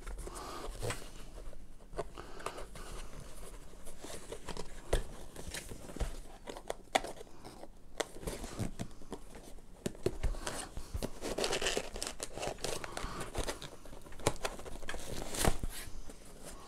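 Cardboard packaging handled by hand: box flaps folding, cardboard rustling and scraping, and a foam insert being pulled out, with scattered light clicks and knocks. The rustling is heaviest about two-thirds of the way through.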